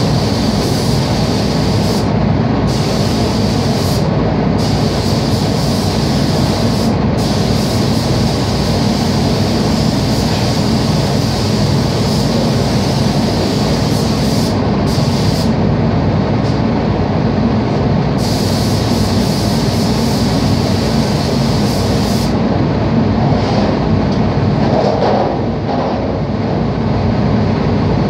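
Paint spray booth's ventilation fans and air flow running: a loud, steady rushing drone, with a higher hiss on top that drops away several times and comes back.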